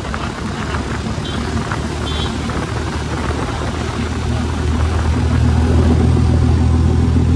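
A motor vehicle's engine running with a low, steady hum, growing louder from about halfway through.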